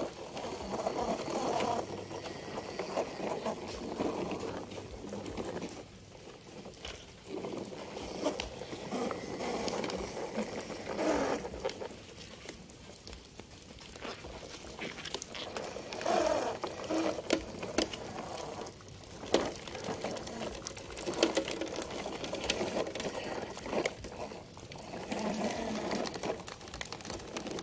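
Plastic toy trucks pushed over wet, rough pavement, their wheels rolling and scraping with light splashing. The sound comes in stretches of a few seconds with short pauses between, full of small clicks.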